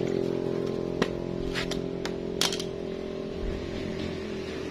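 A few small metallic clicks as the brake caliper's pad pin and its retaining clip are handled and fitted, over a steady mechanical hum.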